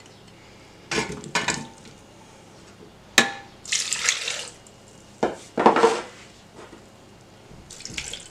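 Juice poured from glasses into a stainless-steel blender jug in several short pours, with a few sharp clinks and knocks of glass on the jug and counter between them.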